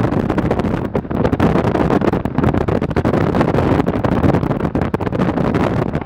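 Heavy wind buffeting on the camera microphone from a moving car, a loud rushing noise full of quick crackles, with vehicle road noise underneath.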